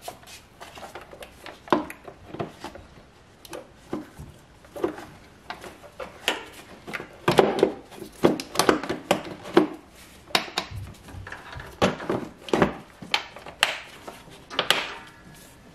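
Hard plastic air cleaner cover and housing of a Toyota Prius being fitted by hand, with irregular knocks and clicks as the parts seat and the clips are fastened. A quick run of clacks about seven to ten seconds in.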